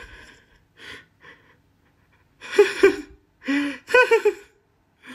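A person's voice making wordless sounds: faint breaths at first, then two short, sharp gasps about two and a half seconds in, followed by a run of short pitched cries.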